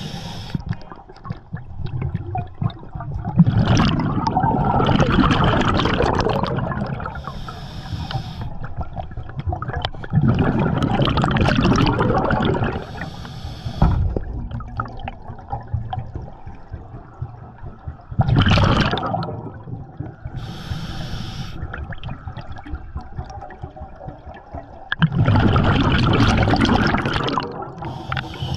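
Scuba diver breathing through a regulator underwater: short hissing inhales and, four times, a long gurgling rush of exhaled bubbles.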